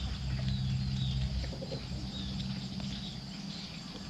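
Chickens clucking with a few small bird chirps, over a low steady hum that fades out about a second and a half in.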